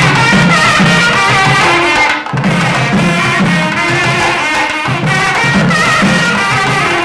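Background music: an ornamented, wavering melody over a steady drum pattern.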